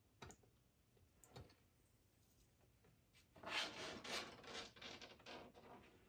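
Black-throated monitor lizard's claws scraping and scrabbling against its enclosure as it rears up at the front panel: a couple of faint clicks, then a run of rasping scratches from about halfway through.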